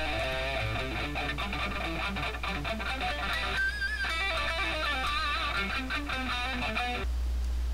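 Electric guitar played through a Bugera 333XL tube amp head: single-note lines, some held with vibrato, over a steady low hum. The playing stops abruptly about seven seconds in, leaving the hum and a faint hiss.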